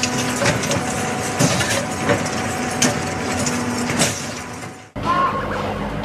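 Rebar bending machine running with a steady hum, sharp metallic clanks and clicks breaking in every second or so as a bundle of rebar is worked. About five seconds in it gives way to the low rumble of a sand-making crusher running.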